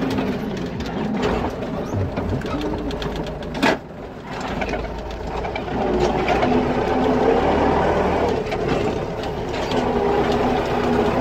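Belarus MTZ-82 tractor's four-cylinder diesel engine running while driving, heard from inside the cab with a busy, rattling chatter. A sharp knock comes nearly four seconds in with a brief drop in level, and from about six seconds on the engine runs louder and steadier.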